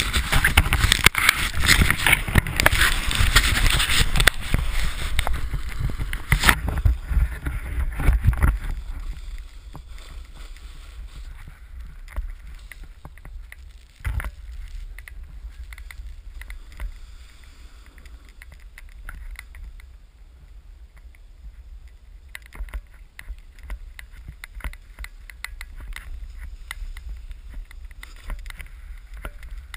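Snowboard sliding over snow, a low steady rumble with scattered scrapes and crunches. The first several seconds are much louder, with wind buffeting and knocking on the camera, before the sound drops to a quieter rumble about nine seconds in.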